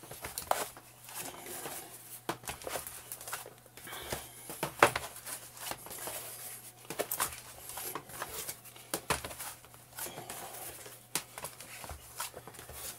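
Fin blade being pushed by hand into the rubber foot pocket of an Omer Stingray long fin: irregular rubbing, scraping and crinkling of rubber against the blade, with scattered small clicks.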